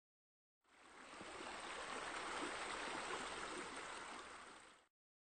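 A steady rushing, water-like noise that fades in shortly after the start, holds for about four seconds and fades out near the end.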